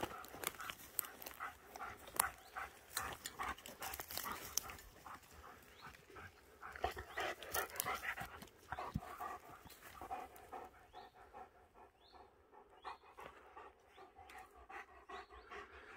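German shepherd panting, short breaths in a quick even rhythm, dying down after about ten seconds.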